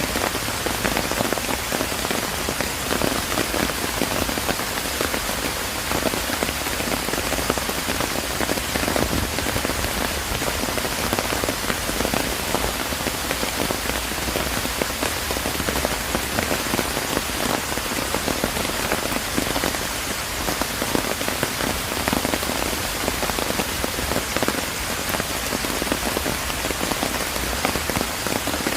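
Steady rain falling on surfaces in a park, a dense even hiss of drops with many small patters and ticks.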